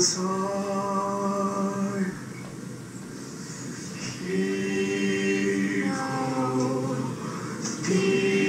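A group of voices singing a cappella in long held notes, with a quieter stretch about two to four seconds in before the voices swell again.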